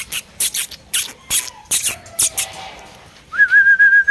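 A run of short, sharp clicks, several a second, then near the end a person's whistle held on one steady note for about a second, dropping at the end.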